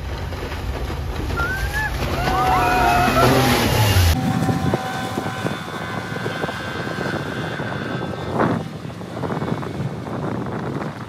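Speedboat's outboard motor running at speed over the water, with rushing spray. A few high, bending calls or whoops sound between about two and four seconds in, the loudest part, and the sound changes abruptly about four seconds in.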